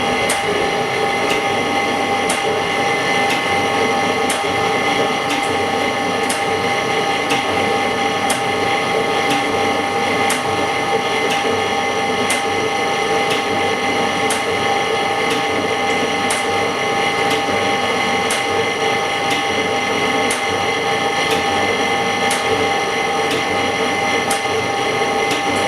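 Semi-automatic LCD separator running steadily, a constant machine hum with several fixed tones and a sharp regular click about once a second, as its cutting wire separates cracked glass from an iPhone 6S LCD.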